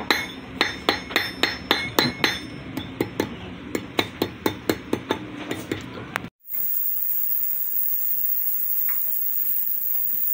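Small hammer striking 18K gold wire on a steel block, sharp metallic blows at about three a second. Just past the middle the hammering cuts off abruptly and a steady hiss follows.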